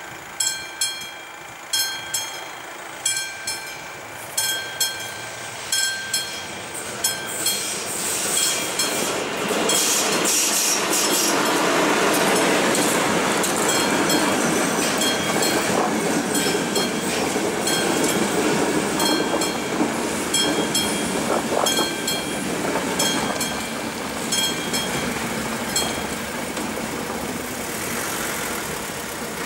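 Level-crossing warning bell ringing, about one electronic ding a second. A passenger train approaches about seven seconds in and runs past with a loud rushing of wheels on rails. Near the end the ringing stops and the train noise fades.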